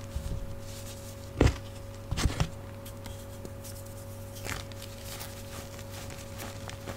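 Chunks of gym chalk crushed and crumbled between the fingers in loose chalk powder: a sharp crunch about a second and a half in, a quick run of crunches just after two seconds, then softer crumbling. A steady hum from an old fridge runs underneath.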